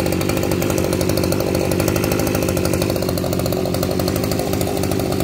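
Makita MEM2610U brush cutter's small two-stroke engine idling steadily.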